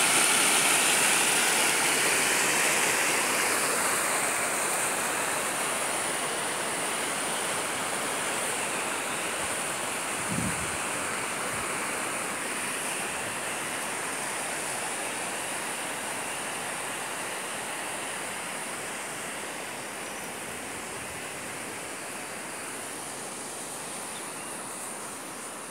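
Rain-swollen river water rushing and churning white past a concrete crossing, a steady rush of water that is loudest at the start and slowly fades. A brief low thump about ten seconds in.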